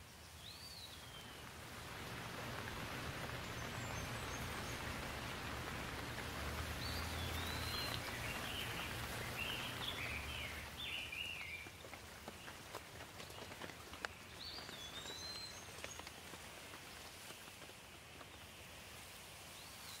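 Steady rain falling on leaves: a dense patter that swells during the first half and then eases to a lighter hiss with separate drops. Birds give short chirps through it, several in the middle and a few more later.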